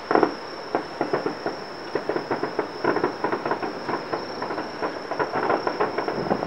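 Aerial fireworks popping and crackling in a rapid, uneven run of small bangs, with a louder bang just after the start. A steady high-pitched insect trill runs underneath.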